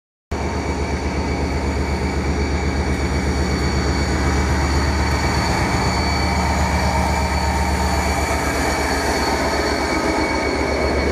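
Class 57 diesel locomotive running past close by, its EMD two-stroke V12 diesel engine giving a steady, rapidly pulsing low rumble with steady high whining tones above it. The sound grows a little louder over the first few seconds as the locomotive draws near.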